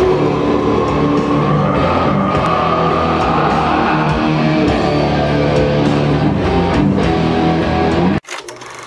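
Loud heavy rock music: electric guitars and drums with a singer's voice, cutting off abruptly about eight seconds in.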